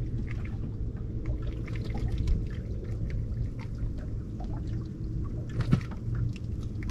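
Water pouring and splashing in small irregular spatters over a steady low hum, with one sharper knock a little before the end.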